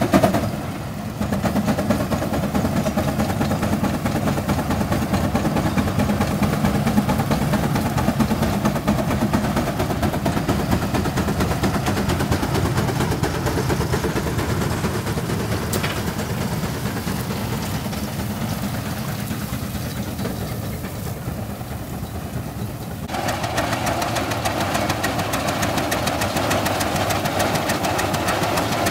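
Antique Case tractor engines working under load, pulling a gang plow: a steady, rhythmic engine beat. The tone changes and gets busier about 23 seconds in.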